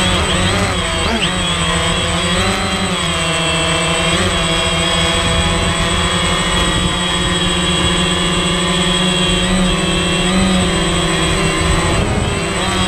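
DJI Phantom quadcopter's four motors and propellers whining loudly, heard from on board the drone. The pitch wavers up and down in the first few seconds as it manoeuvres, then holds steadier.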